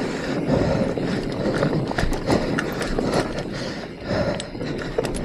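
Mountain bike rattling down a rocky trail: tyres crunching over rock with frequent sharp knocks and clatter from the bike.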